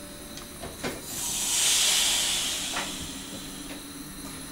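A rush of compressed air that swells about a second in, peaks and dies away over about two and a half seconds, from the pneumatic system of an NS SGM Sprinter electric train, heard inside the driver's cab. A few short clicks come just before and after it.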